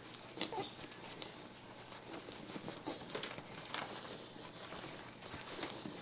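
Rustling, crinkling and light patter of two capuchin monkeys tussling on a mesh playpen floor, with scattered small clicks and taps.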